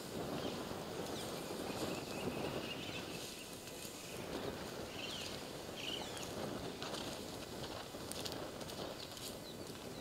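Raw cashew nuts in their shells roasting on an open fire, with scattered small crackles and pops as the shells burst, over a steady rushing noise.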